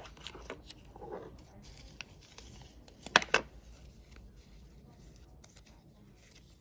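Light rustling of paper stickers and their backing sheets as they are handled and stacked by hand, with two sharp clicks a little over three seconds in.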